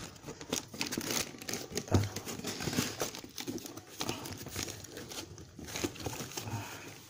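A cardboard parcel being opened by hand: irregular crinkling and tearing of its paper and packing wrap, with a couple of dull knocks from handling the box.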